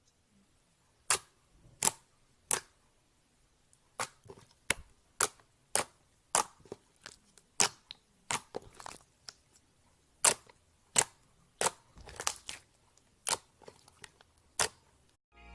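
Slime being squeezed and poked, giving a string of sharp, irregular pops and snaps, about one or two a second.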